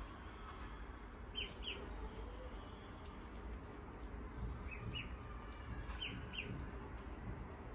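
Ducklings peeping: short, high, falling peeps, mostly in quick pairs, about six in all, over a faint steady low hum.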